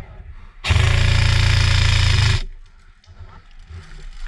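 Airsoft electric rifle firing one full-auto burst of nearly two seconds, a rapid even rattle starting about half a second in.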